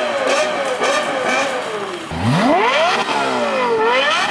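Lexus LFA's naturally aspirated 4.8-litre V10 being free-revved while the car stands still, in quick blips for about two seconds. Then the revs drop low and climb steeply to a high-pitched wail, fall back and climb again twice.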